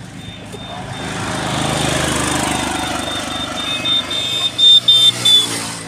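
A motor vehicle passes close by on the road, its engine and tyre noise swelling to a peak about two seconds in and then fading. Near the end come a few short, loud high-pitched beeps.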